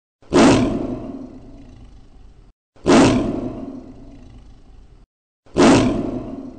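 Recorded tiger roar looping as a mobile ringtone: three roars about two and a half seconds apart, each starting loud and fading away, with a short dead silence between repeats.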